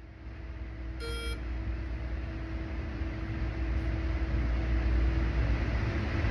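A shot timer app gives one short electronic beep about a second in, over a low rumbling noise that slowly grows louder.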